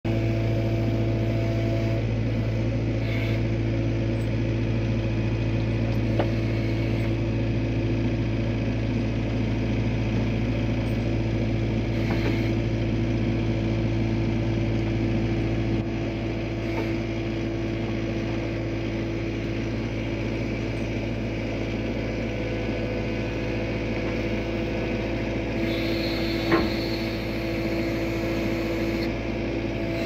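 An engine running steadily at a constant speed, with a few faint knocks over it.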